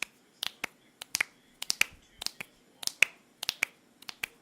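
Finger snapping in rapid 'triple snap' bursts: sharp snaps in quick groups of two or three, repeating about every half second, recorded with the mic's low-cut filter at 237 Hz.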